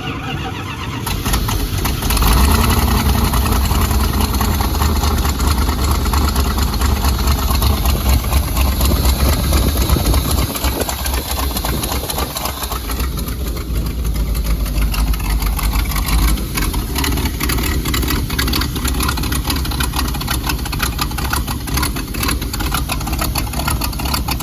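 C60 grain truck's carbureted engine catching about a second in after being cranked with the throttle pumped, then running loud with a heavy low rumble that eases a little later on. Its choppy note is what the crew takes for a performance camshaft ("it's cammed").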